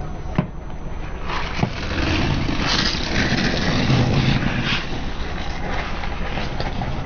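Car tyre rolling slowly over plastic Mentos gum bottles on asphalt, cracking and crunching them, over the low hum of the car's engine. A couple of sharp snaps come in the first two seconds, then the crunching builds and is loudest around the middle.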